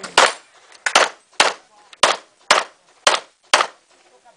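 A handgun firing a rapid string of about seven shots, roughly two a second, as a practical-shooting competitor engages paper targets.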